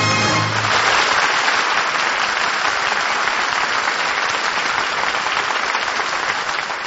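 Studio audience applauding, with the orchestra's last held chord cutting off under a second in.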